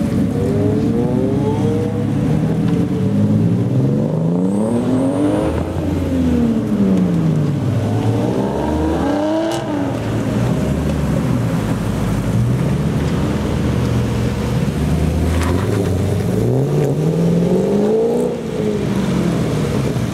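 Sports car engines idling steadily while one engine is revved up and down, its pitch climbing and falling back about five times.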